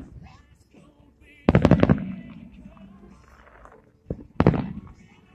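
Aerial fireworks shells bursting. A quick cluster of sharp bangs comes about a second and a half in with a low rumbling echo after it, then a single bang and another short cluster near the end.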